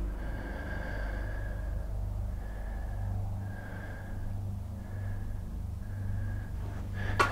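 Steady low rumble of distant motorway traffic, with a faint high whistling note that comes and goes about once a second and one sharp click near the end.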